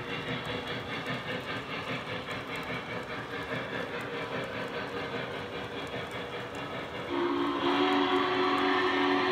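Model freight cars rolling along three-rail O-scale track with a steady, rapid clicking of wheels over the rails. About seven seconds in, the Lionel Legacy Norfolk and Western Class J's sound-system steam whistle blows a loud, held chord.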